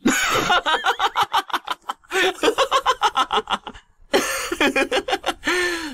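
A man's voice laughing scornfully in three long bouts of quick, repeated ha-ha pulses, with short breaks between them.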